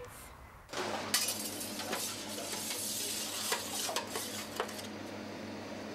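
Metal pizza pan and utensils clinking and scraping at a pizza oven, with sharp clinks scattered over a steady low hum; the sounds start just under a second in.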